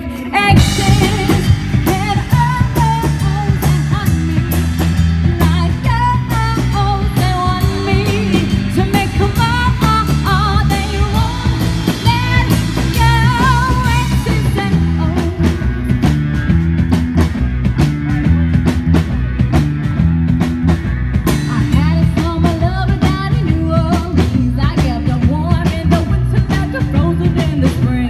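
Live rock band playing: a woman sings lead over a drum kit, electric bass and guitar. The voice drops out for several seconds around the middle while the band keeps playing, then comes back near the end.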